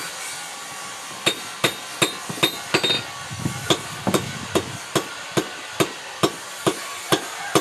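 Blacksmith's hammer striking a steel parang (machete) blade on an anvil: a steady run of sharp, ringing blows about two and a half a second, starting about a second in.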